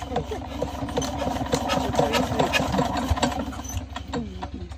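8 hp single-cylinder diesel pump engine running with a rapid metallic clatter and steady low firing pulse, having just fired up under the crank handle. The clatter is loudest in the middle seconds and eases near the end.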